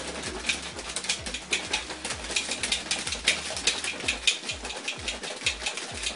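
BlenderBottle shaker being shaken hard, its wire whisk ball rattling inside the plastic bottle in rapid, repeated clacks, several a second, as it mixes powder into water.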